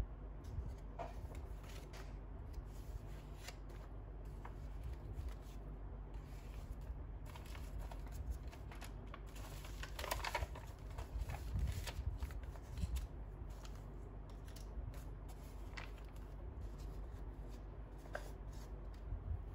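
Pages of a handmade junk journal being turned and handled by hand: paper, kraft-paper and card pages rustling, with brief soft flaps and clicks, busiest about halfway through. A steady low hum lies underneath.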